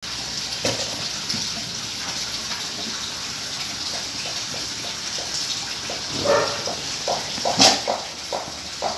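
Rottweiler gnawing and licking a raw carrot: scattered wet mouth sounds, growing busier in the last third, with one sharp crunch near the end, over a steady hiss.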